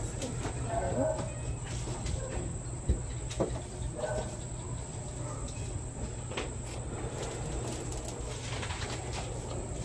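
Crickets chirring in a steady high trill, with faint voices and a few soft clicks and rustles as feathers are plucked from a freshly killed chicken.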